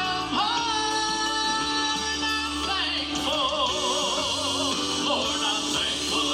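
A song: a singer holds long notes over instrumental backing, one held note about halfway through carrying a wide, even vibrato.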